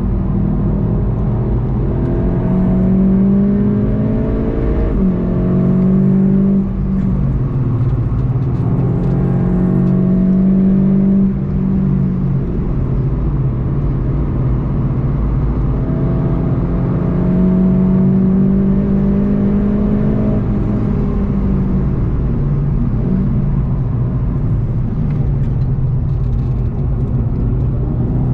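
VW Golf 7.5 GTI TCR's 2.0-litre turbocharged four-cylinder engine heard from inside the car while lapping: the revs climb under acceleration and drop sharply at each upshift, several times over, with a constant low road rumble underneath.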